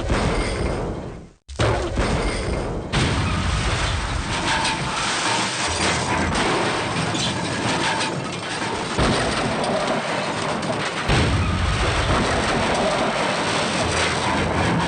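A deep boom that dies away and is cut off, a second boom straight after, then a long dense rumbling crash noise.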